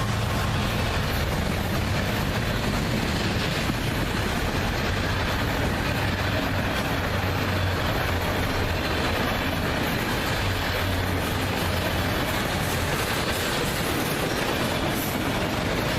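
CSX freight train rolling past at track speed: a steady rumble of wheels on rail, with a constant low hum.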